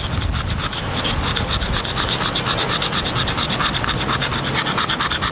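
Wood being scraped into fine tinder shavings: fast, even scratching strokes, several a second, without a break.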